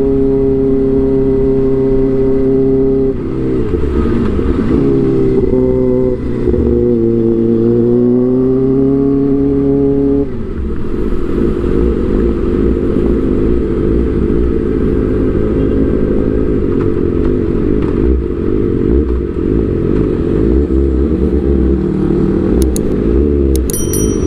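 Kawasaki ZX-25R's 250 cc inline-four running through an Arrow aftermarket exhaust. It holds steady revs for about three seconds, is revved up and down with the throttle, and about ten seconds in settles to a lower, uneven idle. A few sharp clicks come near the end.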